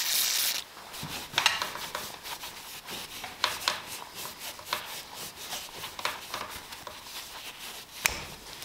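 Aerosol disc-brake cleaner spraying in a steady hiss that cuts off about half a second in. Then a cloth rag rubs the pistons of a hydraulic disc-brake caliper, wiping the dirt off them with irregular scuffs and small clicks.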